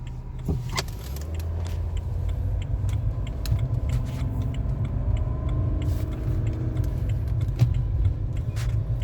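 BMW 335d's diesel engine pulling away and accelerating with its mass airflow sensor unplugged, the engine note rising in pitch over several seconds above a low rumble, with scattered light clicks.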